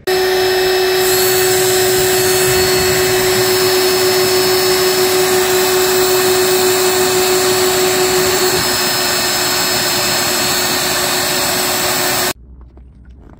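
Power drill running steadily at full speed with a constant hum, its twist bit boring a mounting hole through aluminum angle. It cuts off suddenly near the end.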